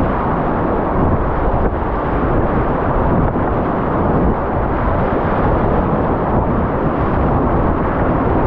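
Whitewater rapids rushing, a loud, steady, dense noise of churning river water.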